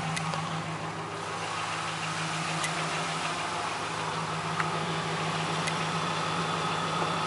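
2011 Dodge Ram 1500's 4.7-litre V8 idling steadily in its first minutes after a cold start, with a few faint clicks.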